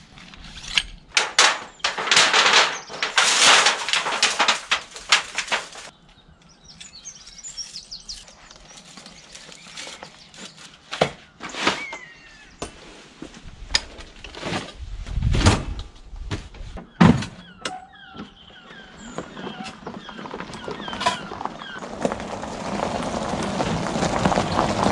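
Camping gear being handled and packed away: a dense spell of rustling in the first few seconds, then scattered knocks and clatters.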